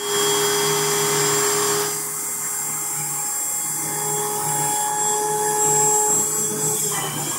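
High-speed spindle of an fcarve PCB Master CNC machine running with a steady whine as it drills through four stacked PCBs. The sound shifts about two seconds in and again near the end.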